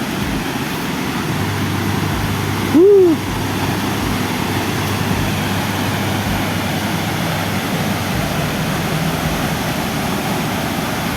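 Waterfall rushing as a steady, even roar. About three seconds in, a brief tone rises and falls in pitch over it.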